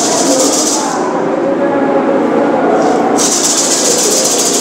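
Gourd rattle shaken hard in two spells, one at the start and one from about three seconds in, a dense high shaking hiss over a steady lower background.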